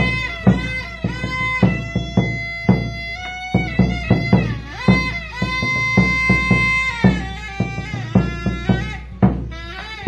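Traditional Q'eqchi' drum-and-pipe music: a large rope-laced double-headed wooden drum beaten in a steady beat while a small high-pitched pipe plays a melody over it, with bending notes and one long held note about six seconds in.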